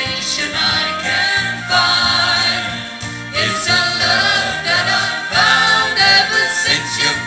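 Live pop band music with three voices, two men and a woman, singing together in harmony into microphones over a keyboard-led band.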